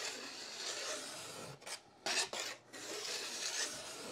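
Hand edge-tuning file drawn along a snowboard's steel edge in several long strokes, with a short loud stroke about two seconds in. The edge is being sharpened and its scuff marks filed smooth.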